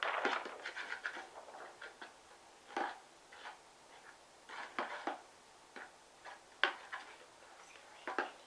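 Slime mixture being stirred in a bowl with a utensil: irregular scrapes and clinks against the bowl as the glue starts to activate.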